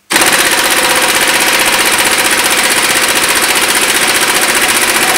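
Impact wrench hammering continuously on a 21 mm crankshaft pulley bolt, a steady rapid rattle that starts abruptly at the outset; the bolt does not break loose.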